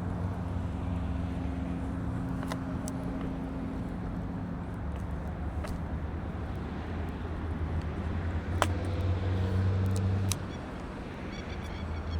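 Car engine and road noise heard from inside the cabin while driving, a steady low hum that shifts pitch a few times as the revs change, with a few sharp clicks and knocks.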